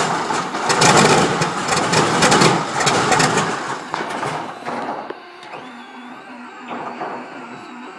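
Wright R-3350 eighteen-cylinder twin-row radial aircraft engine coughing and popping irregularly as it is cranked and almost catches. The sound builds for about three seconds, then dies away about five seconds in as the engine fails to start.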